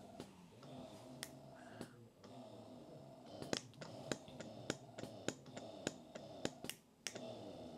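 Hands-free electric breast pump running: a quiet, steady motor hum with sharp clicks, coming thick and irregular from about halfway through.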